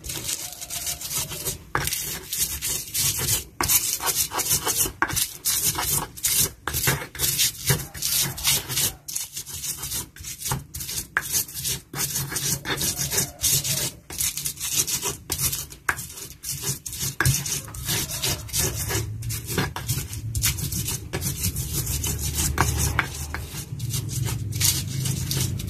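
Stone pestle (ulekan) grinding chillies, garlic and coriander seeds in a stone mortar (cobek): repeated scraping, crushing strokes of stone on stone, making sambal.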